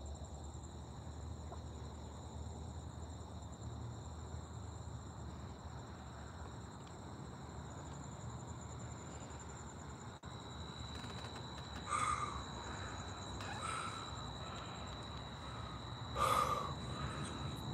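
Crickets chirring steadily at night, a faint continuous high trill. Two short breathy sounds, a person's breath, come near the end.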